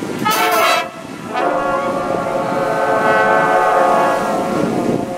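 Marching band brass section playing a short accented chord hit, then holding a long sustained chord of several notes for about four seconds.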